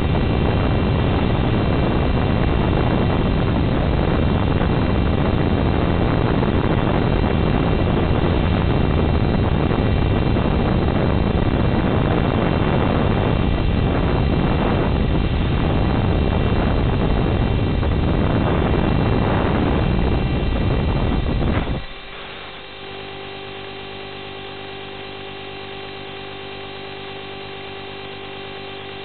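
Steady rushing noise over the Dynam HawkSky's FPV video-link audio as it glides low, cut off suddenly about 22 seconds in when the plane comes down in tall crop. After that there is a quieter steady electrical hum with a buzzing tone.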